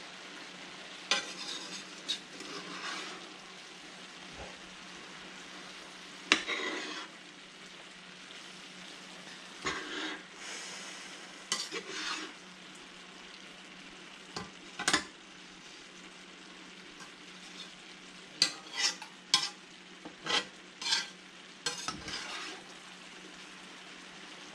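Diced vegetables and meat sizzling in a frying pan, with a metal spatula scraping and clacking against the pan as the food is stirred. The strokes come every few seconds, several in quick succession about three-quarters through, over the steady hiss of the frying.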